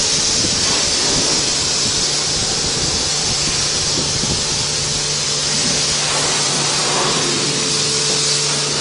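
High-pressure car-wash lance spraying water in a steady hiss, with a steady low hum underneath.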